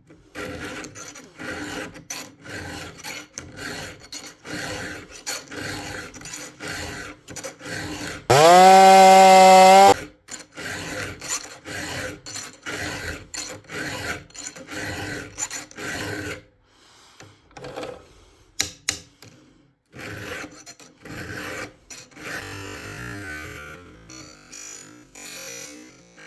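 A round file being stroked across chainsaw chain cutters, giving rhythmic rasping strokes about two a second, with a few short pauses. About eight seconds in, a much louder pitched sound rises and then holds for under two seconds before the filing strokes resume.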